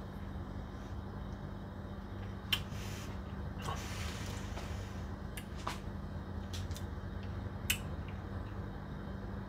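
Mouth sounds of someone tasting a mouthful of beer: sharp lip smacks and tongue clicks, three of them plainly, with a couple of short breaths about three and four seconds in. A steady low hum runs underneath.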